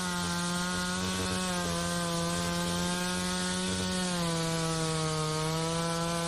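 Small multirotor drone's motors and propellers humming steadily, the pitch dipping slightly about four seconds in.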